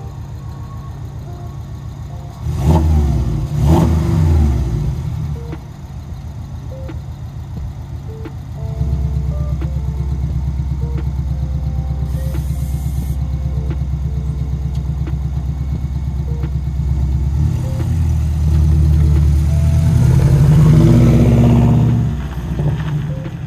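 Porsche 718 Boxster engine idling, blipped twice in quick revs about three seconds in, then running louder as the car pulls away, the engine note rising and swelling near the end as it drives off.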